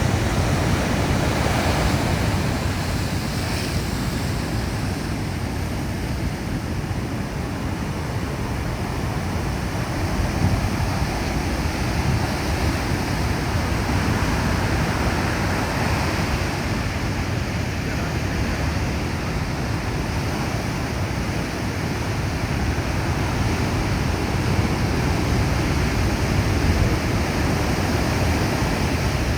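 Heavy sea waves breaking and washing continuously, a dense rushing noise with the deep low end strongest, swelling and easing in loudness.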